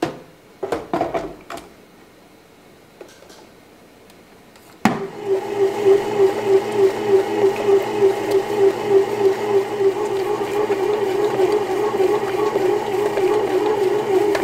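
A few short knocks, then about five seconds in a click and a Cuckoo CBM-AAB101S bread maker's motor starts kneading. It runs steadily with a rhythmic pulse, about two or three a second.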